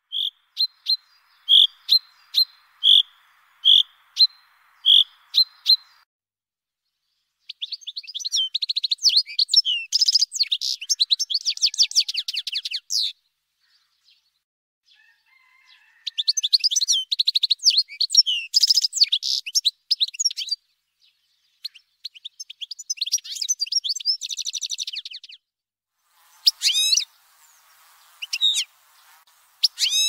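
Small songbirds: about ten evenly spaced single call notes, then several bursts of fast, high twittering song separated by short silences.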